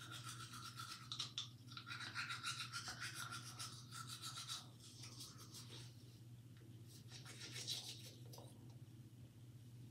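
Toothbrush scrubbing teeth in quick, scratchy strokes. The brushing stops about halfway through and comes back briefly later, over a low steady hum.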